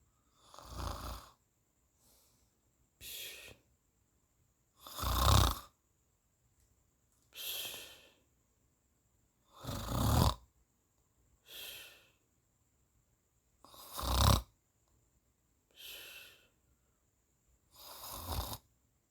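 Someone asleep snoring in a regular rhythm: a loud, deep rasping snore about every four seconds, five in all, each followed about two seconds later by a softer, shorter breath out.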